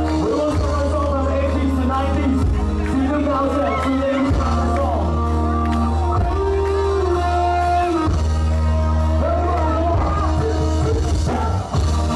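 Loud music with a singing voice over a heavy, steady bass line and a regular beat.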